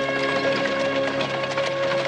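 Film score music with held notes that change about a third of a second in, over faint light clicks or knocks.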